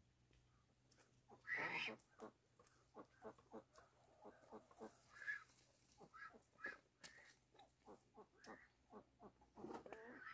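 Ducks quacking faintly in a run of short calls, the loudest about a second and a half in.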